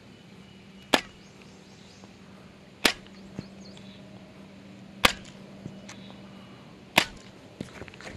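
Fishing line on a baitcasting rod jerked against a snagged lure, giving four sharp snaps about two seconds apart, with a few fainter ticks between them.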